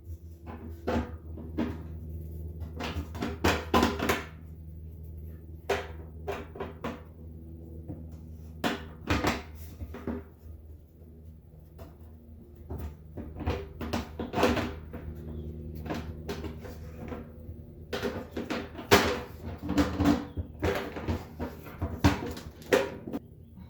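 Irregular clicks, knocks and rattles of fuel pump parts being handled and fitted by hand, over a steady low hum.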